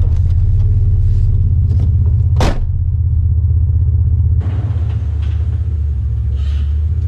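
Chevrolet S10 pickup's engine and exhaust droning steadily while driving, its catalytic converter removed so it runs through only a downpipe, with a brief sharp sound about two and a half seconds in. A little past halfway the drone changes to the truck heard from outside.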